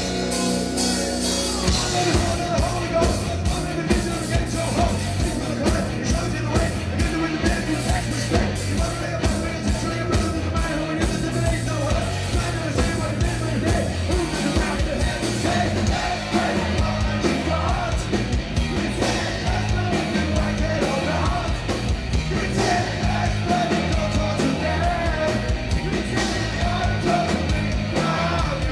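Rock band playing live: electric guitar, drum kit and a singer's voice with a steady beat.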